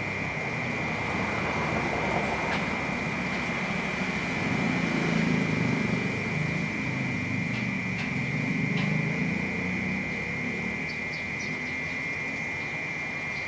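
Cicadas droning in one steady, unbroken high-pitched note, over the low rumble of city traffic that swells twice. A few faint short high chirps sound now and then.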